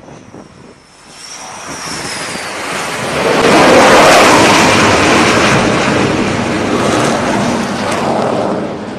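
Twin jet engines of an F/A-18F Super Hornet landing on an aircraft carrier deck and being caught by the arresting gear. A thin high whine at first falls away as the jet noise builds, peaks about four seconds in, stays loud, then eases near the end.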